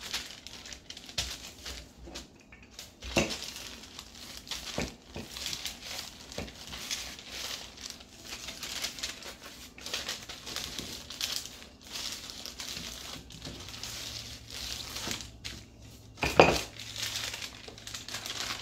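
Baking paper crinkling and rustling under a wooden rolling pin as dough is rolled out between two sheets, in repeated uneven strokes. A sharp knock near the end is the loudest sound.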